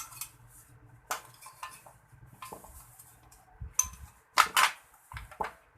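Scattered metallic clicks and clinks of a clothes iron's metal parts and tools being handled, with a louder pair of knocks about four and a half seconds in.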